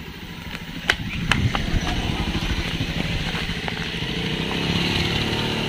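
Motorcycle engine running as it is ridden, with a steady pulsing beat that settles into a more even pitch in the second half. Two sharp knocks sound about a second in.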